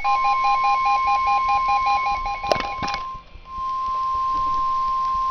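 NOAA Weather Radio warning alarm tone: a steady single-pitch tone signalling an emergency alert. For the first three seconds a rapid two-note beeping, about four beeps a second, pulses over it, ending with two clicks and a brief dropout, after which the steady alert tone sounds alone.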